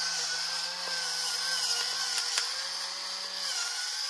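Electric pepper mill running as it grinds black pepper onto raw pork chops: a steady small-motor whine over a gritty grinding hiss. The pitch drops a little about three and a half seconds in.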